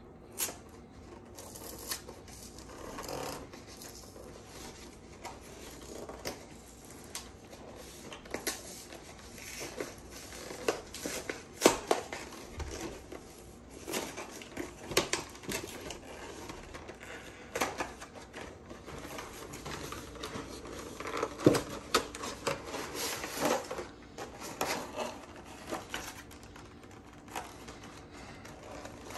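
Cardboard collection box and clear plastic insert being handled and opened: irregular rustling, scraping and clicking, with a few sharper knocks.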